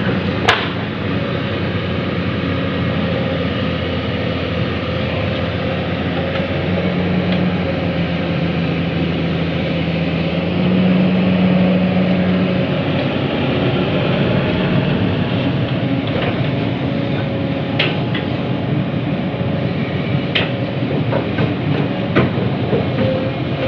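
Heavy diesel machinery running steadily as an excavator digs soil and loads a dump truck, its engine note rising and holding for a few seconds near the middle. A sharp knock comes just after the start and a few more near the end.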